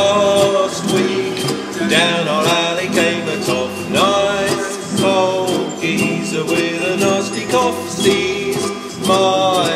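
Upbeat music-hall tune without words, with plucked strings, a pitched lead line that swoops up into its notes every couple of seconds, and a regular beat.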